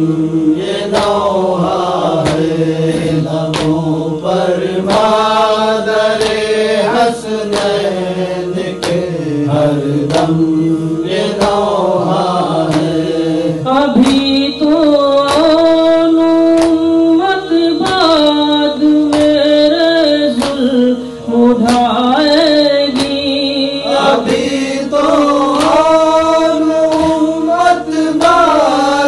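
Male voice chanting a noha, a slow mournful Urdu lament, in long melismatic phrases over a steady held drone.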